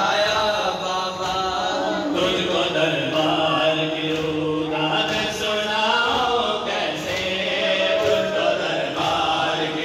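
Group of men chanting a Muharram mourning lament (nauha) together, with rhythmic hand slaps on bare chests (matam) keeping the beat.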